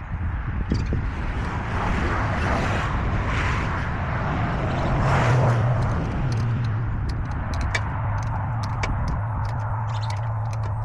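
An engine running steadily with a low hum. A rushing sound swells and fades about halfway through, and light clicks and taps come in the second half.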